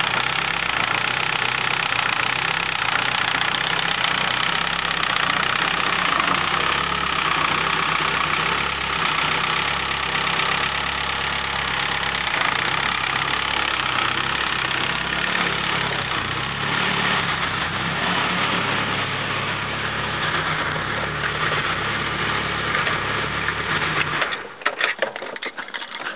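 Mitsubishi Eclipse GSX's 6-bolt 4G63 four-cylinder engine idling with a nasty ticking noise. The owner suspects lifter tick even though new 3G lifters are fitted. The engine is shut off near the end, followed by a few clicks.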